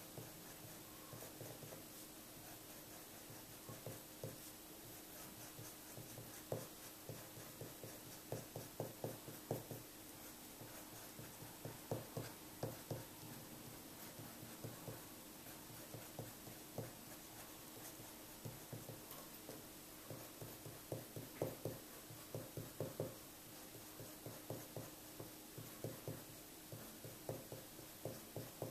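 Pencil scratching on paper in runs of quick, short sketching strokes, over a faint steady hum.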